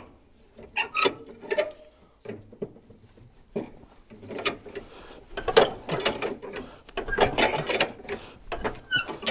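Irregular metallic clicks and clunks from parts of a UAZ 469 being worked by hand, sparse at first and busier from about the middle on. No engine is running.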